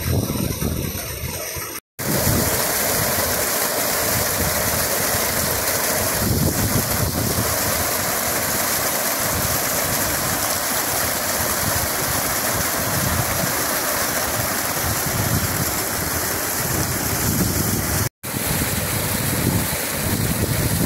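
Water gushing hard out of a pipe outlet below a gate valve: a loud, steady rushing and splashing. It cuts out for an instant about two seconds in and again near the end.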